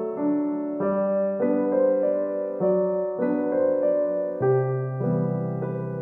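Background music: a soft piano or electric-keyboard melody, with notes and chords changing at an even pace a little under twice a second.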